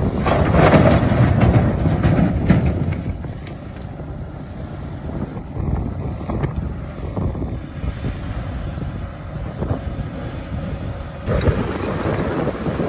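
Excavator working rock: its diesel engine running under load, with a few short knocks in the first few seconds and a louder surge near the end. Wind buffets the microphone throughout.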